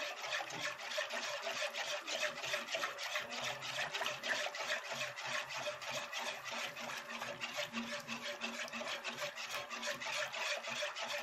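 A utensil scraping round a metal pot of béchamel sauce in quick, even strokes, several a second. The sauce is being stirred constantly so that it does not lump as it thickens.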